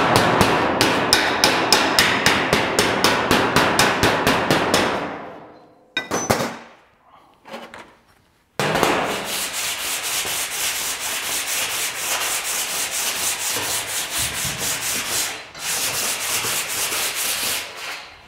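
Flat file rasped across a sheet-metal car bonnet, a rapid, even chatter in two long spells with a short pause between. The panel is being filed up to show its high and low spots after panel beating.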